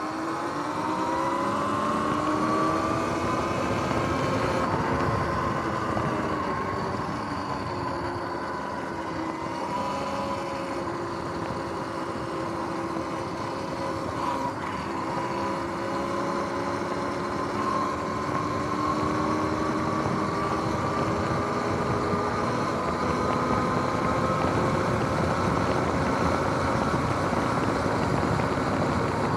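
Electric dirt bike's motor and drivetrain whining while riding, the whine slowly rising and falling in pitch with speed, over a steady rush of wind and tyre noise.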